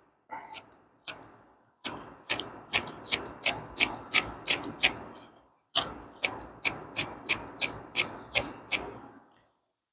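Flint spark wheel of a Zippo fire-starting multi-tool being struck over and over by thumb, each stroke a short sharp scrape, about two to three a second. The strikes come in two runs with a brief pause between them.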